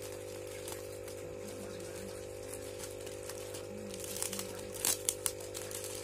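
Plastic bag of hamster bedding rustling and crinkling briefly a few times about four to five seconds in, over a steady low hum.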